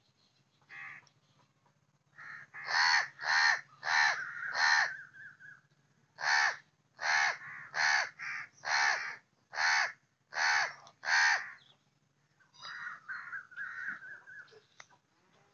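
Crow cawing over and over: four loud caws in quick succession, a short pause, then seven more at a little under one a second. Softer, shorter calls follow near the end.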